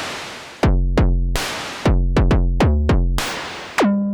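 Moog DFAM analog percussion synthesizer playing its kick/snare template, its steps triggered one at a time from a MIDI keyboard: an irregular run of pitched kick-drum hits with noisy snare hits between them. Near the end comes a higher tone that sweeps down in pitch and holds briefly.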